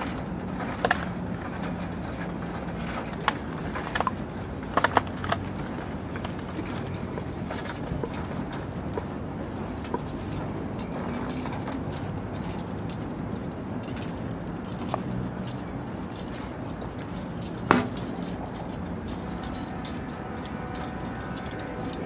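Sparse sharp knocks and clicks of objects being handled and struck by the noise-orchestra performers, over a steady low rumble. A cluster of knocks comes a few seconds in and one louder knock comes near the end, followed by a faint sustained tone.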